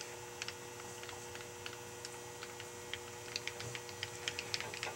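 Light, irregular metallic clicks from a Grizzly rotary table as its handwheel is cranked, growing more frequent about three seconds in, over a steady electrical hum.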